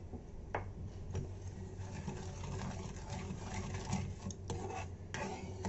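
A steel spoon stirring and scraping sugar into thickened, reduced milk in a steel pan, with a few sharp clicks of the spoon against the pan, over a low steady hum.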